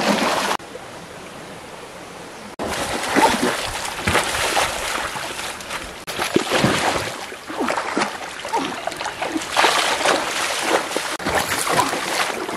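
Shallow stream water splashing hard and irregularly as hands thrash in it to grab fish, over the running stream. After the first half second there are about two seconds of only steady running water, then the splashing starts again.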